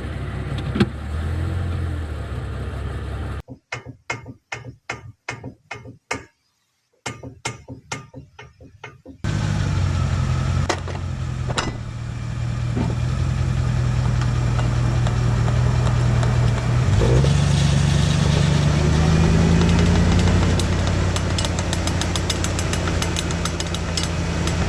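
Vehicle driveline with worn universal-joint (cross) needle bearings: a running vehicle, then a rapid series of sharp clicks about three a second, then the vehicle running again with its engine tone rising partway through. The noise is the sign of worn, damaged needle bearings in the driveshaft U-joint.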